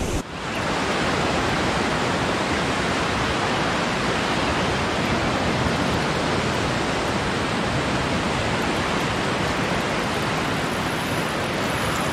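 Steady, even rushing noise of surf on the beach, starting abruptly a moment in and holding at one level throughout.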